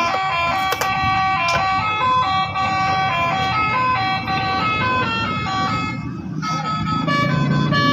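A toy pickup truck's electronic sound chip playing a telolet bus-horn tune: a run of beeping horn notes stepping up and down in pitch. A low rough noise runs underneath, and two clicks come in the first two seconds.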